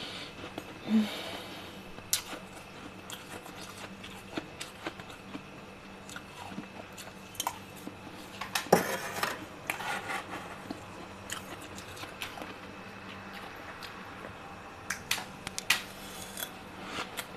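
Freezer frost being bitten and chewed: irregular, slightly crunchy crackles and crunches, with a busier stretch about nine seconds in.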